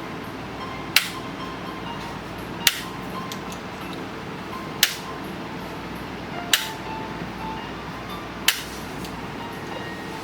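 Chiropractic adjuster firing five sharp clicks about two seconds apart, over background music.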